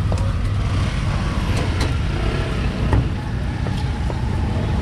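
Busy street ambience: a steady low rumble of road traffic, with a few sharp clicks of metal tongs working on a griddle.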